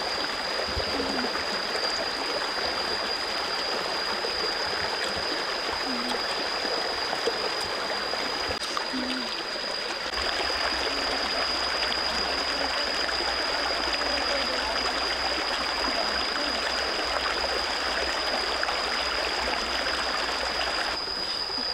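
Stream water running over rocks: a steady rushing hiss, with a thin, steady high-pitched tone above it.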